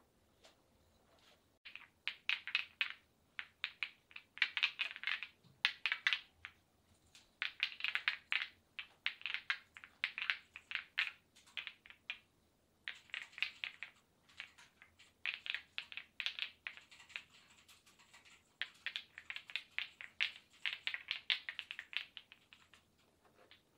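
Hands massaging a bare forearm: skin rubbing on skin in quick, crisp strokes, coming in runs with short pauses between.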